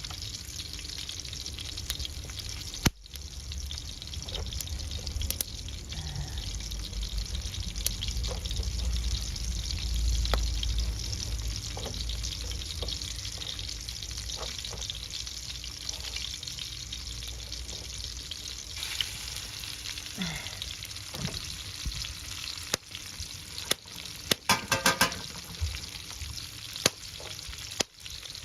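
Fish sizzling as it cooks over a wood fire: a steady hiss with scattered crackles and clicks. A low rumble swells about ten seconds in, and a quick run of sharp ticks comes near the end.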